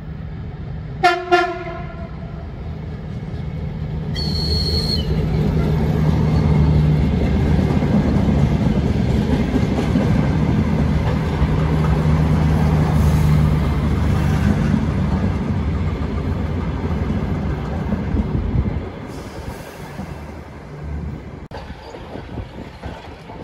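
Electric multiple-unit train gives two short horn toots about a second in, then runs past with a steady low hum and wheel noise. The sound builds, holds and falls away after about 18 seconds.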